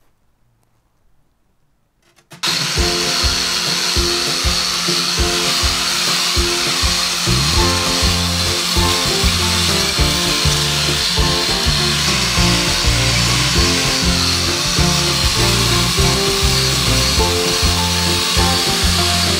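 An angle grinder runs steadily against a metal outboard part, a hissing grind with a high whine. It starts suddenly about two seconds in, with background music under it.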